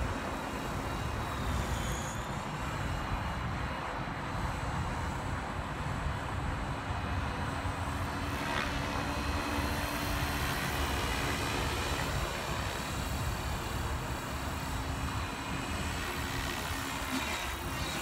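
Align T-Rex 550 radio-controlled helicopter flying at a distance: a steady rotor and motor drone whose whine glides in pitch a couple of times as it manoeuvres.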